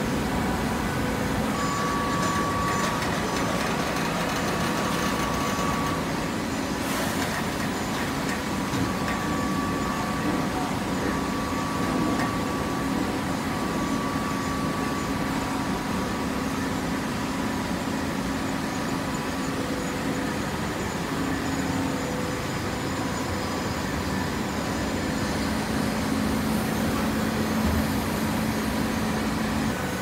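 TCM horizontal auto-tie hydraulic baler running: a steady machine hum from its hydraulic power unit, with a few faint steady tones over even mechanical noise.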